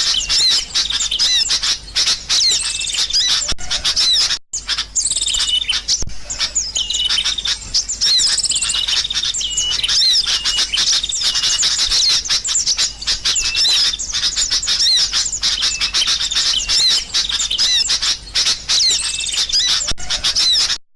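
Sooty-headed bulbuls (kutilang) chattering noisily: a dense, unbroken run of short rising and falling chirps. The calls break off for a moment about four and a half seconds in and stop abruptly near the end.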